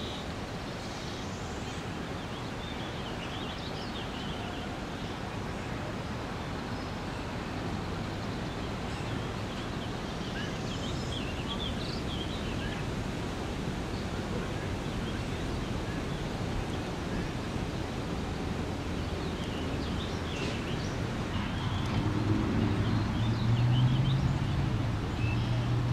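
Outdoor pond ambience: a steady hiss of background noise with scattered faint bird chirps. A low droning hum comes in and grows louder near the end.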